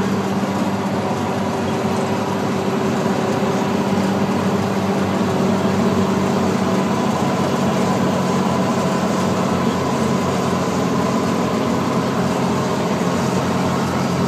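Heavy 700 hp diesel engine of an Oshkosh airport snowblower running steadily under load, heard from inside the cab, with the rushing noise of snow being chewed out of a windrow and blown clear.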